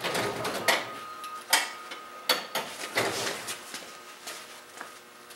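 Metal tools clinking and clattering in irregular sharp knocks as someone rummages in a steel roll-cab toolbox, the loudest clank about a second and a half in, dying down toward the end.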